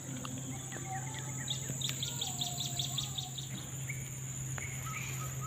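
Birds chirping and calling in short notes, with a quick run of repeated notes about a second and a half in, over a steady high-pitched insect drone.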